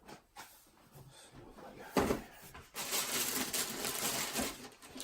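Cardboard shoe box and its contents being handled: scattered clicks, a sharp knock about two seconds in, then about two seconds of rustling.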